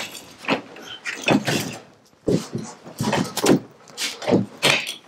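A series of about five knocks, scrapes and rattles as a snowmobile is handled on its wooden shipping crate.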